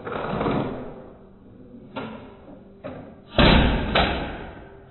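Slowed-down knocks and clatter from a Hot Wheels Mega Garage plastic toy playset and its die-cast car, deepened to low, drawn-out thuds. A first hit at the start dies away over about a second, a couple of lighter clicks follow, and the loudest thud comes about three and a half seconds in.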